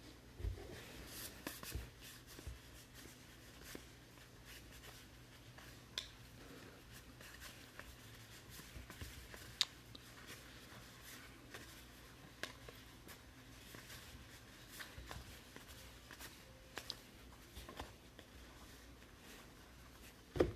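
Faint handling noises of trading cards and their packaging: scattered small clicks, taps and rustles over a low steady room hum.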